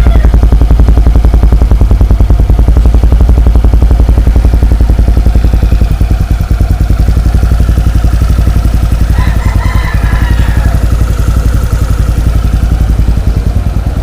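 Suzuki Skydrive Sport scooter's single-cylinder engine idling steadily through an aftermarket Exos X6 racing exhaust pipe, an even rapid putter.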